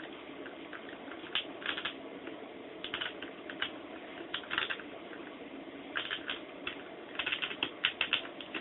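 Vinyl electrical tape being pulled off the roll and wrapped around wire connectors: irregular bursts of short crackles and rustles over a faint steady room hum.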